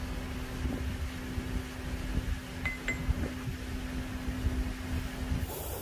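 Steady mechanical hum of workshop machinery with a low rumble, stopping near the end. About three seconds in, two light metallic clinks as the machined steel parts are handled.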